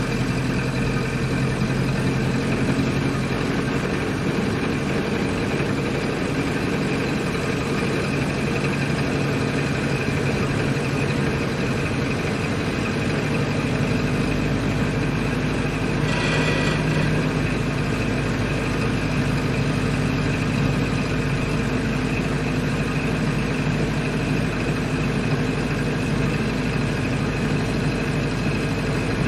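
1928 Ford Model A's four-cylinder engine running steadily while the car is driven. The low engine note changes about halfway through, and there is a short burst of noise soon after.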